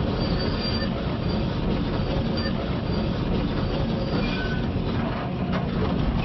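Large quarry excavator travelling on its steel tracks. The diesel engine runs steadily under load while the track links squeal and clank.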